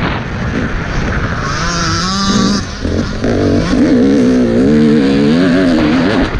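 Motocross dirt bike engine revving up and down under changing throttle over a constant rumble of wind and track noise. From about a second and a half in, the engine pitch climbs and dips again and again.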